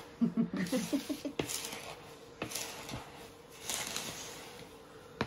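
Wooden spoon stirring dry sugar and jam powder in a plastic mixing bowl: soft, gritty scraping swishes with a few sharp knocks of the spoon against the bowl.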